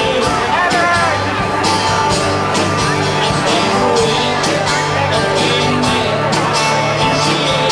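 Live band music: acoustic guitar, keyboard and drum kit playing together, with regular drum and cymbal hits over a steady bass line.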